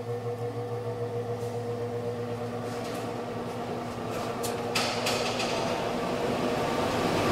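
A 110 V blower door fan (Model 3, Ring A fitted) spinning up under automatic control toward a 50 Pa depressurization: a steady motor hum with a rushing airflow that grows gradually louder as the fan speeds up. There are a few light clicks around the middle.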